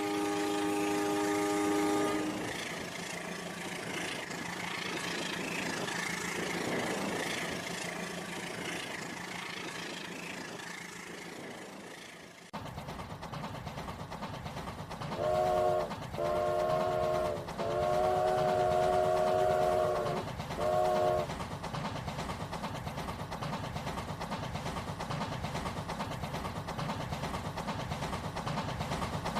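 Train horn sounding a chord that stops about two seconds in, followed by rolling train noise. Partway through, the sound changes abruptly to a steady rhythmic train rumble, and the horn blows four times, the third blast the longest.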